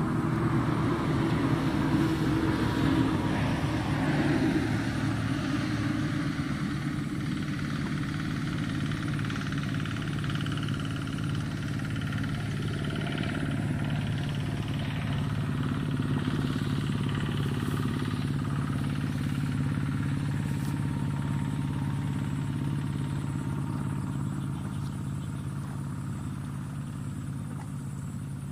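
An engine running steadily throughout. Its note falls over the first few seconds, then holds.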